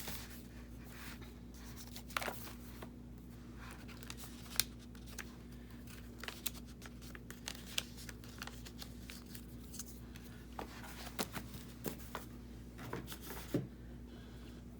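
Paper and card pieces being handled and laid on a journal page: scattered light rustles, taps and clicks, with a sharper tap about four and a half seconds in and again near the end. A steady low hum runs underneath.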